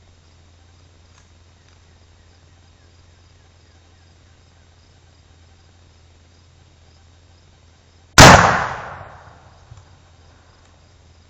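A tannerite charge packed into an action figure is detonated by a shot and goes off in one loud boom about eight seconds in, ringing and echoing away over a second or so. Crickets chirp faintly before and after.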